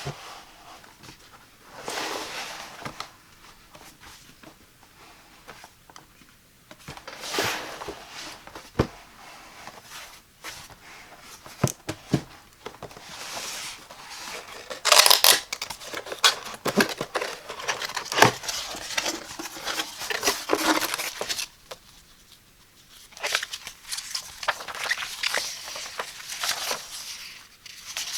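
Cardboard box and packaging being opened by hand: irregular tearing, rustling and crinkling, with scattered sharp clicks and knocks. The loudest burst of tearing comes about halfway through.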